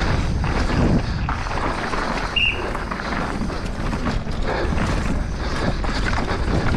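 Downhill mountain bike ridden fast over a dirt trail, heard from the rider's GoPro: knobby tyres crunching and skidding over dirt and roots, the bike rattling and knocking over bumps, with wind noise on the microphone. A brief high squeak about two and a half seconds in.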